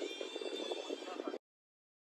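Faint hissy background noise with no low end, which cuts off abruptly to dead silence about a second and a half in.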